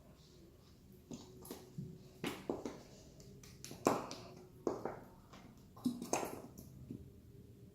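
Glue being squeezed out of a plastic bottle into a container: about eight short, sharp squirts and sputters at irregular intervals as the bottle is pressed nearly empty.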